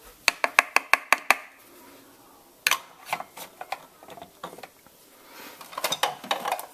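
Plastic kitchenware clattering around a food processor bowl: a quick run of about eight light taps in the first second and a half, a sharper knock near the middle, then scattered clicks.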